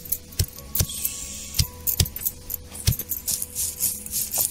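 Stone roller pounding and crushing whole spices, coconut and coriander on a stone grinding slab: dull, irregular knocks about two a second, with the metal bangles on the grinding wrists jingling over them.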